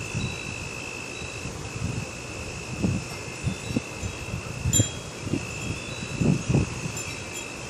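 Gusty wind buffeting the microphone in irregular low bursts, with a few high, clear tones ringing on for seconds above it, the loudest gust about six seconds in.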